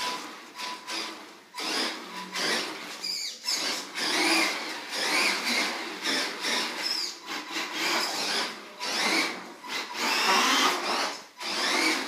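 Tamiya Blackfoot RC monster truck's electric motor and gears whining in repeated bursts, pitch rising and falling with each squeeze of the throttle.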